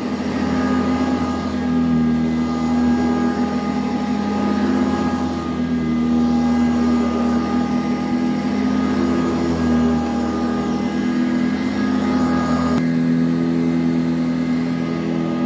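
Eureka High Filtration Commercial upright vacuum cleaner running on carpet, a steady motor whine over the rush of its fan. Near the end the higher hiss drops away and the sound turns duller.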